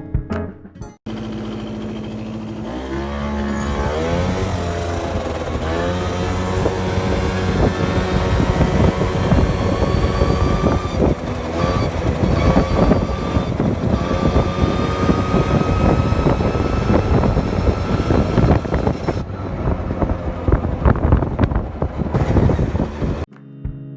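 Honda Gyro Canopy's two-stroke scooter engine, running steadily from about a second in, revved a few times about three seconds in, then pulling steadily under way with its pitch slowly rising, easing off near the end.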